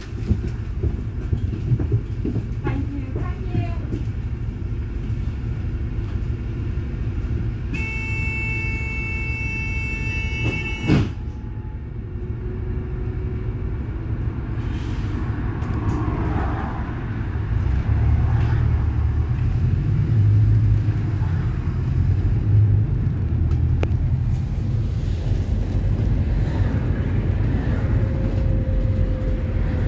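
Dublin Bus city bus running, with a steady low engine and road rumble. About eight seconds in, a steady tone sounds for about three seconds and ends in a sharp knock. The engine rumble grows louder from about eighteen seconds in.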